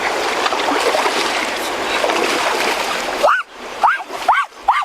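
Water splashing and churning for about three seconds, then several short, high whining calls in quick succession, each rising and falling in pitch.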